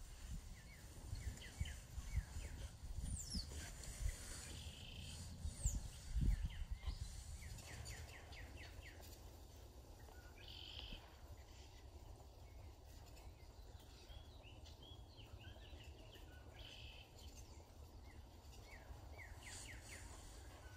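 Wild birds singing and calling at dawn, with quick runs of short chirping notes repeating throughout. Gusts of wind buffet the microphone with a low rumble during the first several seconds, loudest about six seconds in.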